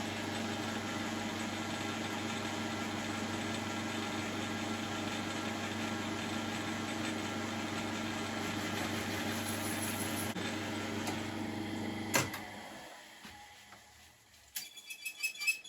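9-inch South Bend lathe running steadily with a boring head chamfering a bored hole in aluminium plate. About twelve seconds in it is switched off with a click and winds down, followed by a few light metallic clicks near the end.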